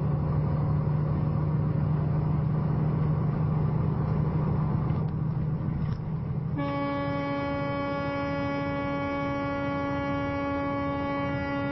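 Semi-truck cab noise at highway speed: the diesel engine's steady low drone under road noise. About halfway through, a horn sounds and is held as one steady tone to the end.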